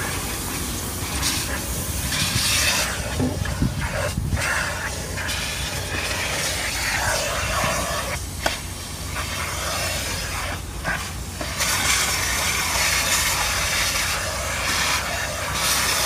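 Self-serve car-wash vacuum sucking through a long hose and nozzle: a steady rushing hiss over a low hum, rising and falling as the nozzle moves over the floor, with a few sharp clicks.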